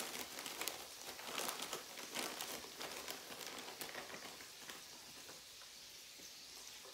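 Plastic bag of frozen shredded hash browns crinkling as they are shaken out, over a steady crackling sizzle of sausage frying in hot oil in an electric nonstick cooker. The crinkling dies away about four seconds in, leaving the sizzle.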